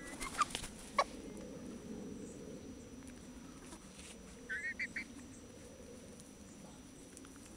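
Young Bantam Cochin rooster giving a quick run of about four short calls about halfway through. A few sharp clicks and rustles come in the first second.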